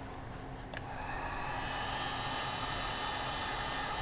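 A heat gun switched on at its low setting: a click of the switch about a second in, then the steady whir and rush of its fan blowing hot air.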